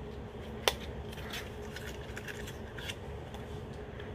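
A single-eyeshadow package being handled and opened: light rustling and scraping, with one sharp click under a second in.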